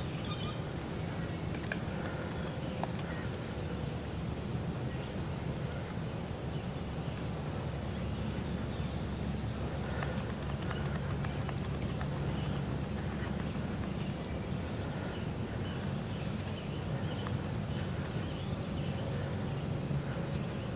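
Woodland ambience: a steady high-pitched insect drone, with short high bird chirps now and then, over a low steady rumble.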